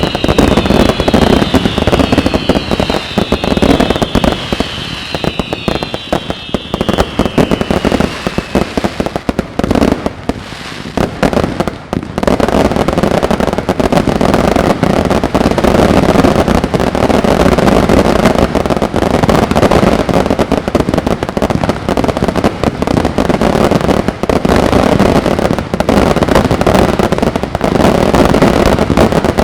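Fireworks display: a dense, continuous barrage of bangs and crackling. Several whistles glide downward in pitch and overlap through the first several seconds.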